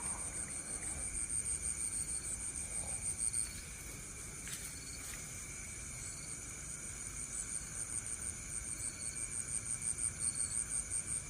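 High-pitched insect calling, cricket-like: a rapid, even train of chirps that stops for about three seconds midway and then starts again, over a steady high-pitched drone.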